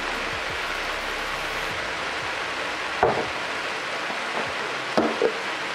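Cabbage and chicken sizzling in a skillet, a steady hiss, with two brief sharp sounds about three and five seconds in.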